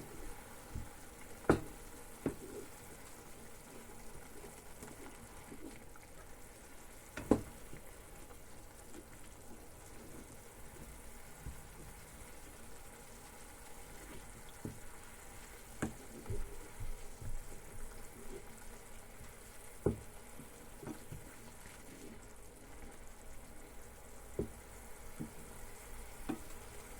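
Vegetables frying quietly in a pan with a faint steady sizzle, and a few sharp knocks of a utensil stirring against the pan.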